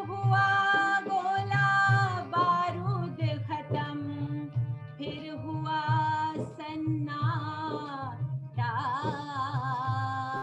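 A woman singing long, held notes with wavering ornaments, over a low, steadily pulsing musical accompaniment.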